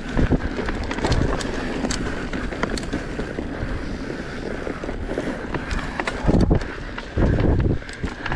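Wind rushing over the microphone and tyres rolling over leaf-covered dirt as an electric mountain bike descends fast, with many small clicks and rattles from the bike. Two heavy low thuds come near the end, about a second apart.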